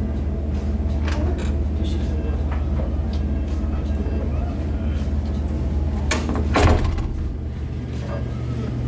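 A door opening, its loudest part a short clatter about two-thirds of the way in, over a steady low drone.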